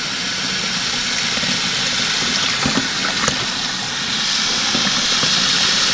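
A kitchen faucet runs steadily, its stream pouring into a person's open mouth and splashing into a stainless steel sink as a constant hiss.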